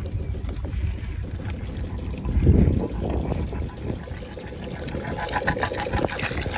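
Yanmar 2QM15 two-cylinder marine diesel running steadily while its cooling water splashes out of the wet exhaust into the sea: the sign that the raw-water pump is working. There is a brief low thump about two and a half seconds in, and the splashing grows louder and more rapid near the end.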